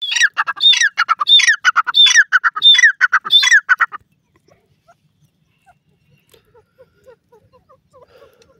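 Gray francolin calling at close range: about six loud, harsh repeated phrases in four seconds, each a high note sliding into a falling one with rapid clicking notes between. The calling stops about four seconds in, leaving only faint, soft short notes.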